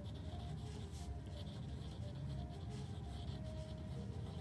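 A pen writing cursive on lined paper: scratching strokes that come and go, over a low steady hum.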